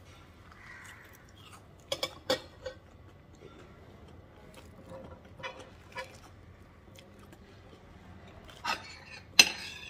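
Cutlery and crockery clinking now and then during a meal, in a few scattered sharp clinks. The loudest clink comes near the end.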